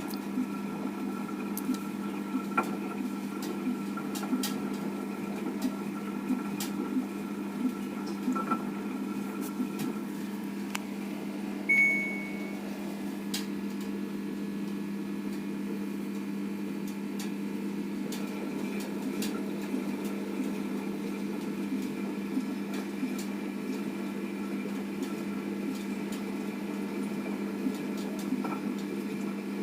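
Washing machine running a cleaning cycle with a dishwasher tablet: a steady low hum with light scattered ticks, and a short high beep about twelve seconds in.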